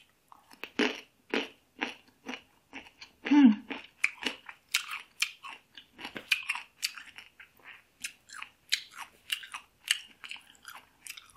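Crisp chewing of raw young (unripe) mango slices close to the microphone: a bite as a slice goes in, then irregular crunches, several a second.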